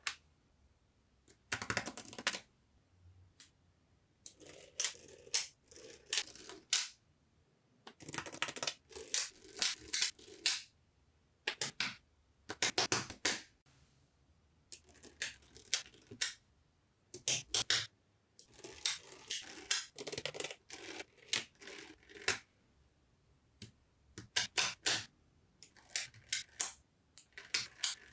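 Small magnetic balls clicking as they snap together, in quick clusters of sharp clicks with short pauses between them.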